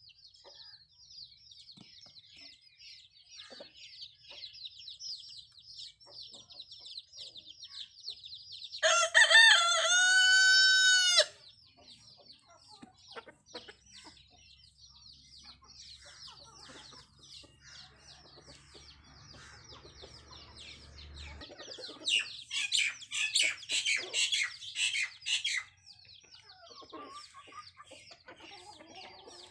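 A rooster crows once, about nine seconds in: one long, steady-pitched call lasting a couple of seconds, the loudest sound. Around it runs a constant stream of rapid, high chirping, which grows louder for a few seconds later on.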